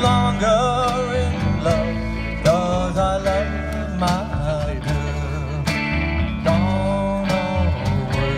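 Live band playing a song: electric guitar, saxophone and upright bass, with singing over them.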